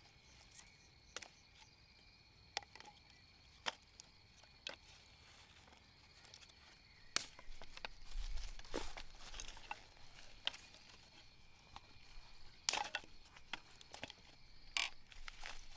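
Faint steady insect trill, like crickets, fading out about halfway through, with scattered sharp clicks and a few short bursts of rustling.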